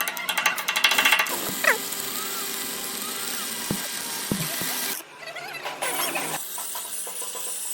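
Metalworking tool noise from a boom repair job. A rapid crackle runs for about the first second, then gives way to a steady hiss, which breaks off abruptly about five seconds in.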